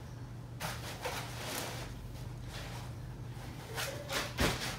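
White foam packing cap being lifted off the top of a boxed subwoofer: foam rubbing and scraping against the carton in bursts, with a sharp knock near the end, over a steady low hum.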